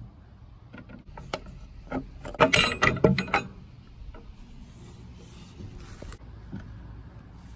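Ridgid cordless impact driver driving a screw into wooden boards: a few short clicks, then a rattling burst of about a second with a thin high motor whine. Faint handling of the wood follows.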